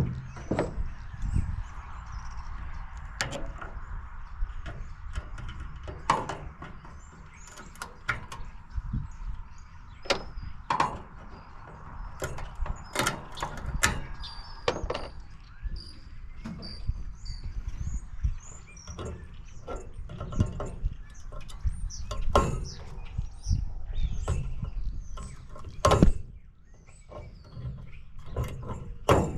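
Microwave oven being pried and pulled apart by hand: irregular metal knocks, clanks and scrapes, with one loud knock near the end and a steady low rumble underneath.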